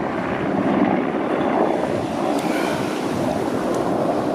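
Wind buffeting the microphone, a steady rushing noise, with a helicopter flying at a distance droning underneath.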